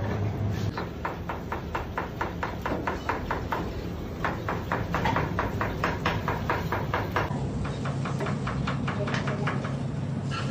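Filleting knife working through fish skin and flesh against a plastic cutting board in quick repeated strokes, about five a second, over a steady low hum.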